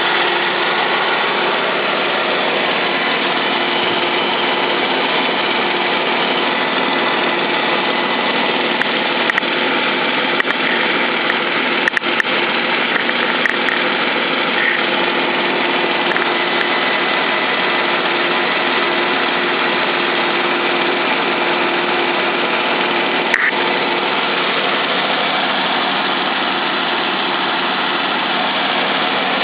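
3.6-litre Pentastar DOHC V6 of a 2012 Jeep Wrangler idling steadily after a cold start. A few faint clicks come through around the middle.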